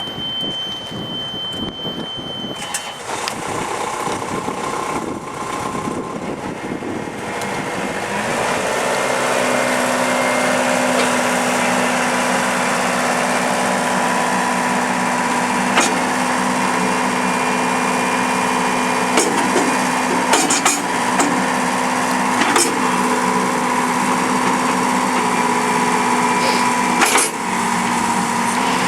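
Volvo MC70 skid steer's diesel engine running, revving up about eight seconds in and then holding a steady high speed. A steady beep sounds in the first couple of seconds, and a few sharp clanks come from the machine as it works.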